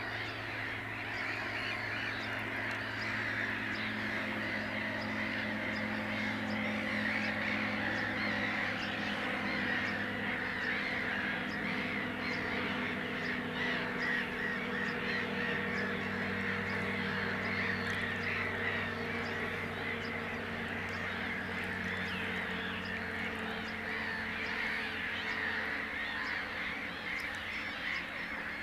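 Many birds calling over one another in a dense, unbroken chorus, with a low steady hum underneath.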